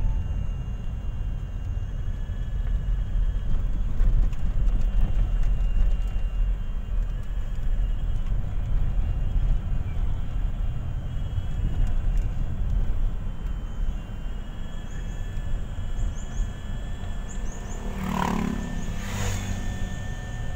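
Van driving on the road, heard from inside the cabin: a steady low rumble of engine and tyre noise. Two brief louder noises sound about 18 and 19 seconds in.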